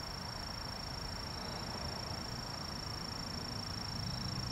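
Steady outdoor background noise with a faint, constant high-pitched whine; no distinct event.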